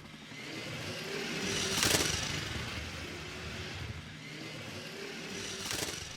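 Two vehicles passing by one after the other, each swelling to a peak and fading, the first about two seconds in and the second near the end.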